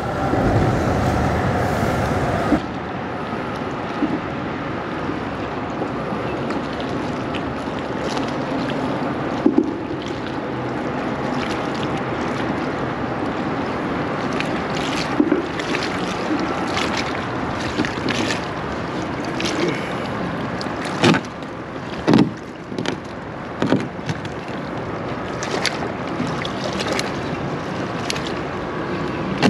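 Choppy bay water lapping against a kayak hull, steady throughout, with a few short knocks and splashes now and then.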